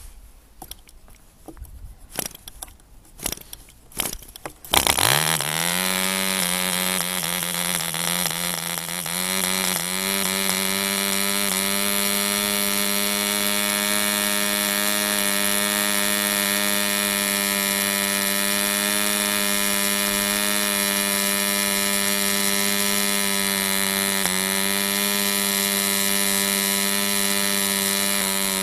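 1945 French Stab 1.25 cc model diesel engine, freshly primed, giving a few sharp pops as it is turned over, then catching about five seconds in. It speeds up within a second or so and runs steadily at high speed with a high-pitched note, with a brief dip about twenty-four seconds in.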